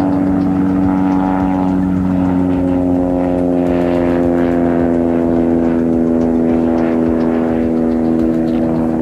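Titan Tornado light-sport aircraft's propeller engine running at high power as the plane passes low and close, then climbs away; a steady engine note whose pitch drops slightly partway through.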